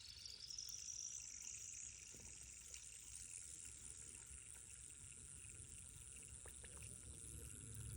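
Faint sound of water running into a container, its ringing tone climbing steadily in pitch as the vessel fills.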